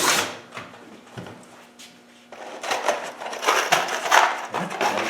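Electric drill stops just as it finishes drilling a hole in a sheet-metal panel. About two seconds later irregular rattling and clattering begins, as tools and small metal parts are handled.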